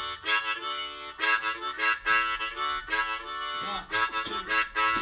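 Soundtrack music led by a harmonica playing a run of short, repeated chord-like notes.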